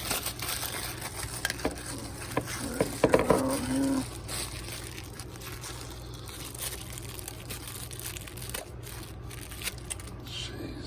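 Plastic packaging crinkling and rustling as a charging cable is unwrapped, busiest in the first four seconds, then quieter handling with scattered light clicks.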